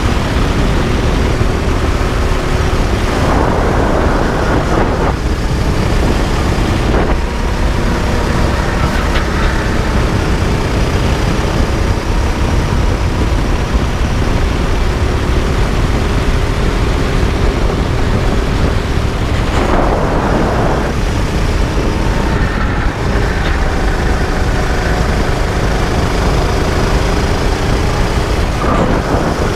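Rental go-kart engine running at racing speed, its pitch rising and falling as the kart accelerates and slows through the corners. Three short stretches of rougher noise come through, about three seconds in, around twenty seconds in and near the end.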